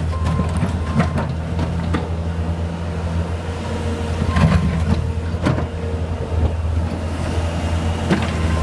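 Skid steer loader's engine running steadily at working speed, with scattered clanks and knocks from the machine as it grades soil.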